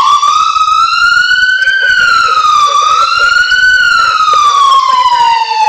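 Whelen CenCom electronic police siren through a Whelen SA314 100-watt speaker, sounding one loud tone that sweeps slowly and unevenly in pitch. It rises, dips, rises again, then falls in one long slide near the end.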